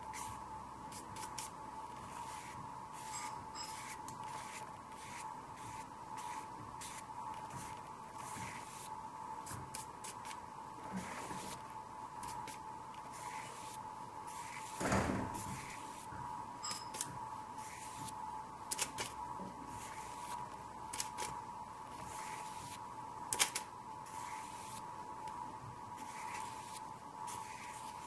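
A bristle paintbrush dragged and dabbed through wet acrylic paint on the painting, making many short scratchy swishes. A steady high whine runs underneath, and a single soft knock comes about halfway through.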